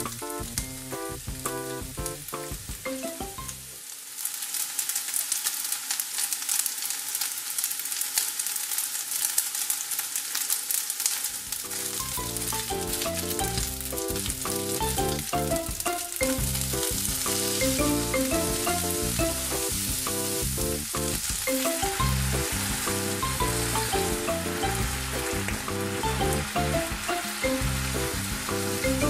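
Chirimen jako (dried baby sardines) frying in oil in a frying pan, a steady sizzle as they are stirred with a spatula. Near the end boiled soybeans and sauce are in the pan, sizzling as the liquid cooks down.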